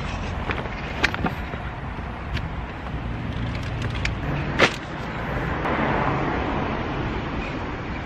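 Shopping being loaded from a trolley into a car boot: a few knocks and clunks of boxes and packs being set down, the loudest about four and a half seconds in, over a steady outdoor rumble of wind and traffic.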